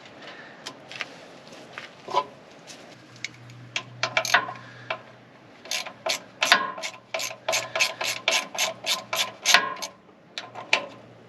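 Ratchet wrench loosening a bolt on the lid of a sealed, oil-filled case. A few scattered clicks come first, then a quick, even run of ratchet clicks, about four or five a second, from about halfway through until shortly before the end. The bolt binds as it backs out, which the mechanic takes for corroded threads inside.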